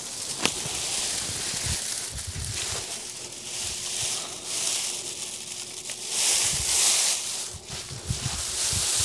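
Dry fountain grass stalks rustling and crackling as the clump is squeezed and bundled with bungee cords, coming in a few bursts with the loudest in the second half.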